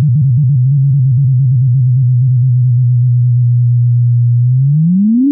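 Synthesised sine-tone sonification of a heap sort. Rapidly stepping low tones settle into one steady low hum, then near the end the pitch glides smoothly upward, the sweep through the now-sorted array.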